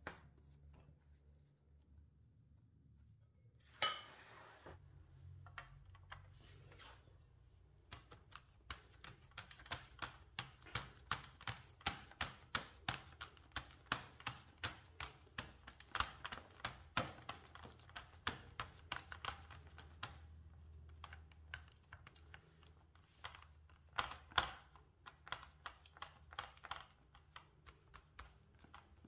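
Fingers pressing dough into a fluted metal tart tin, making a run of short soft taps and clicks, about two a second, with one louder noise about four seconds in.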